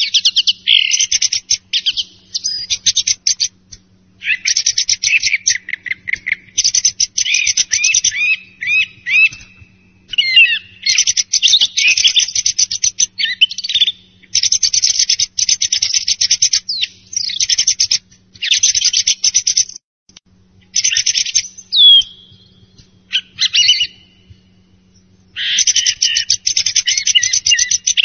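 Song thrush singing in phrases of a few seconds separated by short pauses, mixing rapid rattling repeated notes with whistled slurs.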